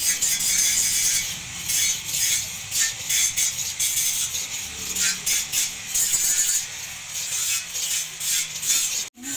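Steel kitchen knife blade, forged from leaf spring, being honed on a sharpening stone: a steady run of back-and-forth scraping strokes, about two a second.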